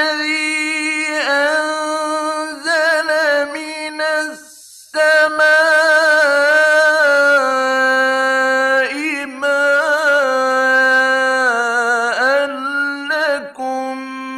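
Male Quran reciter's voice in slow, melodic mujawwad recitation from an old Egyptian radio recording: long held notes with wavering ornaments and turns in pitch, broken by a short pause for breath about four seconds in.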